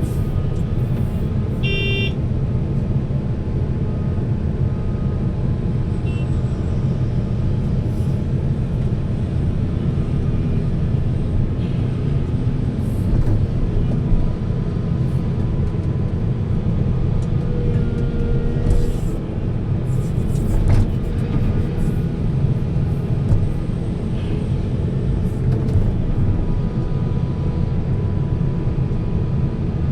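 Heavy diesel machinery running steadily, a deep constant rumble of an excavator and dump truck working, with a short high-pitched chirp about two seconds in.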